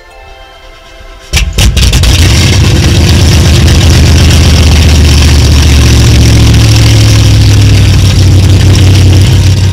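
Twin 870 hp Mercury Racing engines of a Fountain 38 Lightning powerboat starting: about a second and a half in they catch with a sudden, very loud bark, then settle into a loud, deep idle.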